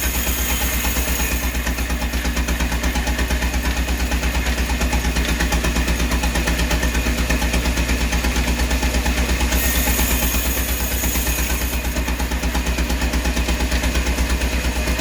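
An engine running steadily at a constant speed, with a low drone and a rapid, even pulsing beat, and a hiss that grows louder about ten seconds in.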